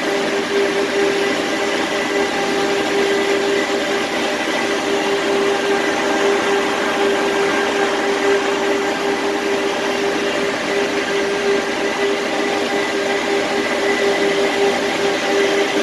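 Steady machine noise with a constant hum, unchanging throughout.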